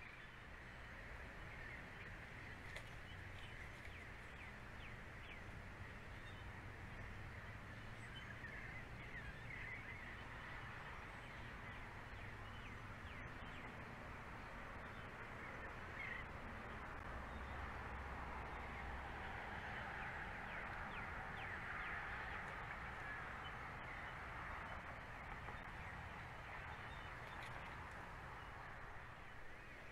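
Faint outdoor ambience of many distant birds calling and chirping, with a brief swell in the calling about two-thirds of the way through, over a steady low hum.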